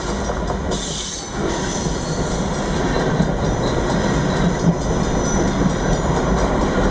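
Freight train cars rolling past close by: a steady rumble of steel wheels on the rails with a few short knocks. It dips briefly about a second in, then swells a little louder.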